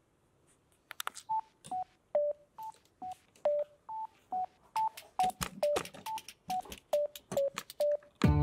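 A run of sharp clicks, each with a short electronic beep at one of three or four pitches, about two to three a second, like keys pressed on a keypad. A music track comes in right at the end.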